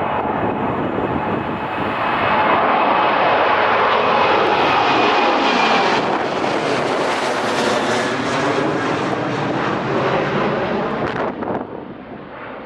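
Airliner engines passing close, a loud rushing roar with a faint steady whine. It builds to its loudest in the middle, then drops away suddenly about eleven seconds in.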